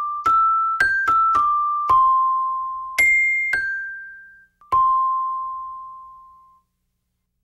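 A simple melody of single, bell-like keyboard notes, struck one at a time and each left to ring and fade. The notes step up and down in pitch, and the last one, struck near the five-second mark, rings out and dies away.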